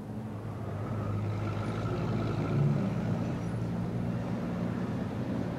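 City street traffic, with a heavy vehicle's engine running as a low, steady drone that builds over the first second or so and then holds.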